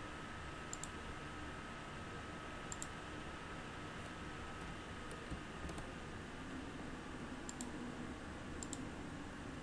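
A few faint computer mouse clicks, a second or two apart, over a steady background hiss.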